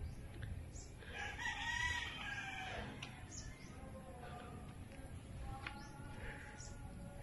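A rooster crowing once, about a second in, for about two seconds, with fainter calls a few seconds later.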